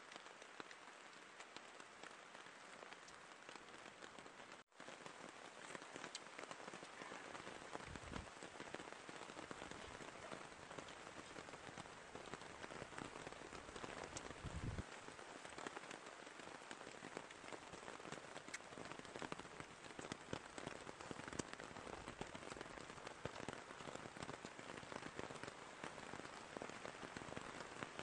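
Steady rain pattering on leaves and the forest floor, a dense hiss full of small drop ticks. The sound drops out for an instant about five seconds in, and there are a couple of soft low thumps.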